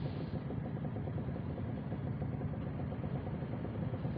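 Motorcycle engine running steadily while riding, heard from on the bike as an even, fast-pulsing rumble with road noise over it.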